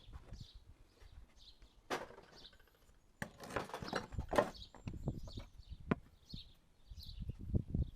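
Irregular metal knocks, clanks and scraping of hand tools working loose the track wear-pad bolts on a mini digger's undercarriage, busiest in the middle, with a sharp click near the end. Birds chirp throughout.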